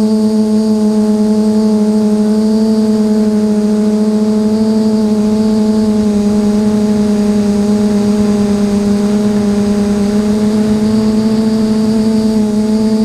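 Armattan FPV quadcopter's electric motors and propellers droning at a steady pitch in level cruise, as picked up by the camera on board, with a faint high whine above the hum.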